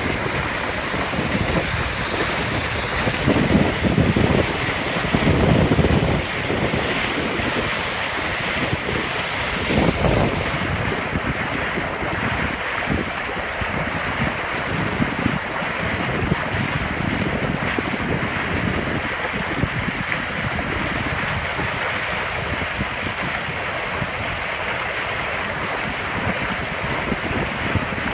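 Bow wave rushing and splashing along the hull of a boat under way. Wind buffets the microphone in a few stronger gusts during the first ten seconds.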